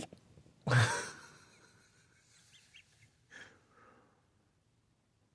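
A person's single loud, breathy blow or exhale with a low buzz under one second in, trailing off over about a second. A few faint small sounds follow before it goes silent.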